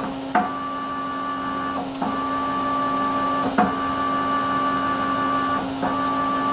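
Leadshine 863S68H stepper motor driving a CNC mill's Z-axis, whining steadily in runs of about one and a half to two seconds, with a click at the start of each run. It is running at reduced acceleration and keeps going without stalling.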